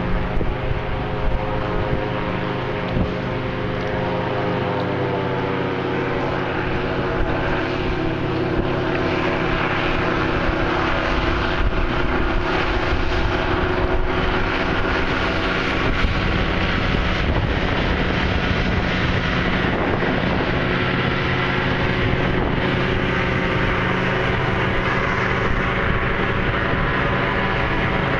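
Airboat engine and propeller running in a steady, loud drone, its pitch drifting slightly as it moves on the water, with some wind noise on the microphone.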